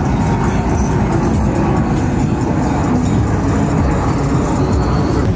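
Steady low engine rumble from a heavily lifted Ram pickup on giant wheels rolling slowly past, with traffic noise from the vehicles behind it.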